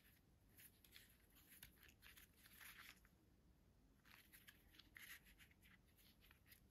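Faint handling noise: soft plastic clicks and rustling as the ISY ITT 750 flexible table tripod's ball head and phone mount are turned in the hand, in two short flurries with near silence between.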